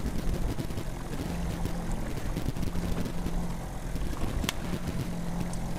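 Fishing boat's outboard motor running steadily at trolling speed, a low even hum under wind and water noise. A single sharp click about four and a half seconds in.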